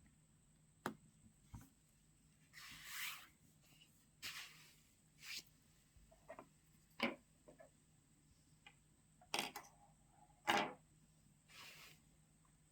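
Faint handling noises of a smartphone being picked up and powered on: a few sharp clicks and short rustles of hands on the phone and the work surface, the loudest click about ten seconds in.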